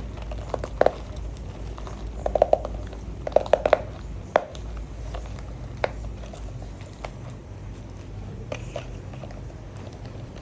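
Kitchen handling noises: quick clusters of clicks and knocks in the first few seconds, then a few single knocks, over a steady low hum of kitchen equipment.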